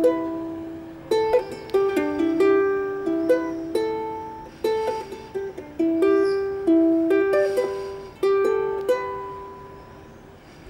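A ukulele played solo: a melody of picked notes and strummed chords, each ringing and dying away. The last chord, struck a little before the end, rings out and fades.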